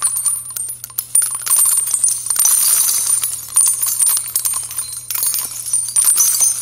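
Jingling, tinkling sound effect made of many small metallic clinks, over a low steady hum.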